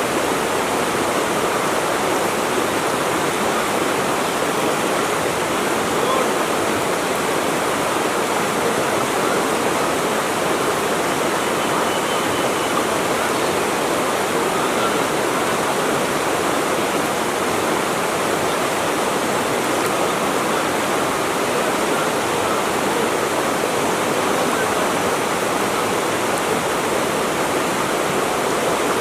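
Flowing water rushing in a steady, even hiss with no breaks or changes.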